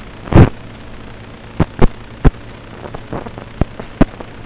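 Steady hiss and low hum of an FPV goggle DVR's audio track, broken by about six loud, sharp pops, the first about half a second in and slightly longer than the rest.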